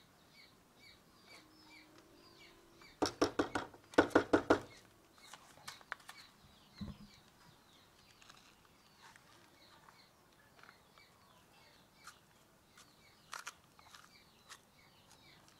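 Small birds chirping over and over in the background. About three and four seconds in there are two louder bursts of rapid, chattering calls.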